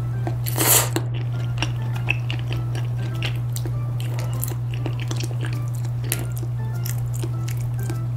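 Close-miked mukbang eating of rosé tteokbokki with glass noodles: a loud slurp about half a second in, then wet, sticky chewing and small mouth clicks. A steady low hum runs underneath.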